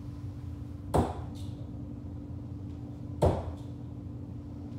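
Two steel-tip darts hitting a bristle dartboard, each a sharp thud: one about a second in, the next a little over two seconds later. A faint steady hum runs underneath.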